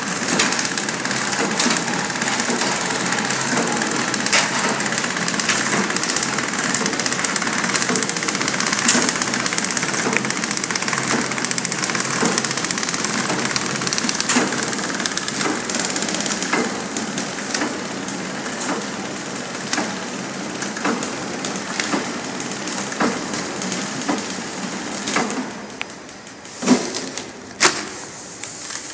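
Small flow-wrap cookie packing machine running: a steady mechanical clatter full of quick clicks and knocks. It gets quieter about two-thirds of the way through, with two louder knocks near the end.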